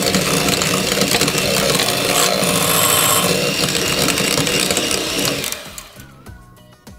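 Corded electric hand mixer running steadily, its beaters whirring through cream cheese, sugar and lemon in a glass bowl; it cuts off about five and a half seconds in.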